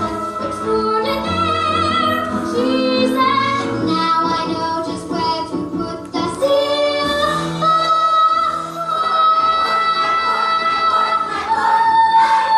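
A young female voice singing a show tune over instrumental accompaniment, with wavering, vibrato-laden notes and long held notes in the second half.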